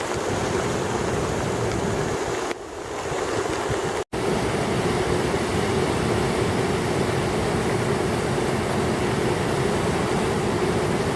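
Floodwater rushing steadily in a swollen creek, an even roar that drops out for an instant about four seconds in.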